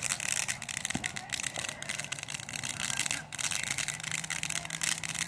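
Ground fountain firework spraying sparks with a steady hiss and fine crackling.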